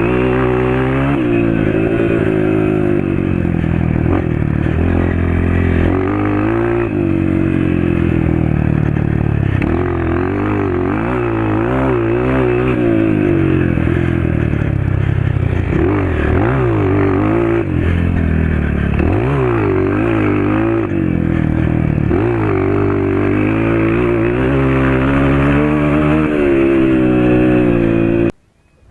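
Honda CRF 230 trail bike's single-cylinder four-stroke engine, through an FMF PowerCore 2 exhaust, ridden hard. The pitch climbs under full throttle and falls at each shift or throttle-off, over and over. The sound cuts off suddenly near the end.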